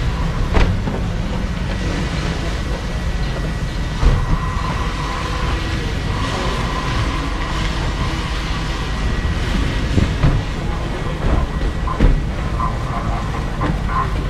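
Steady low rumble and hiss with a few sharp knocks scattered through it.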